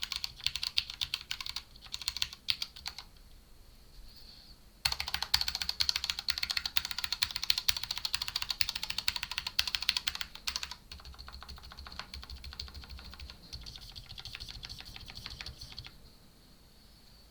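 Typing on a 60% mechanical keyboard with Cherry MX Red linear switches, Cherry-profile PBT keycaps and foam and O-ring damping, in a clear polycarbonate tray-mount case. A short pause comes about three seconds in, then a loud, fast run of keystrokes from about five to ten seconds in. After that the typing goes on softer and lighter, and it stops near the end.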